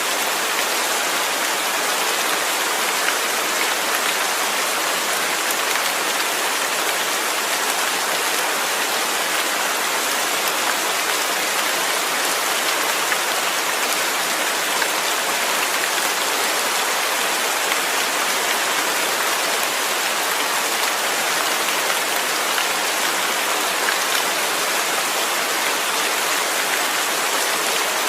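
Steady rainfall: an even, unbroken hiss of rain falling on surfaces.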